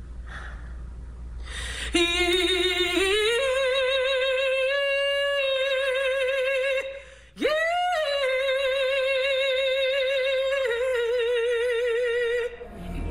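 A woman singing alone with no accompaniment: wordless long held notes with a wide vibrato, beginning about two seconds in on a lower note that rises and holds. After a brief break about seven seconds in, she swoops up and back down into another long vibrato note that stops shortly before the end.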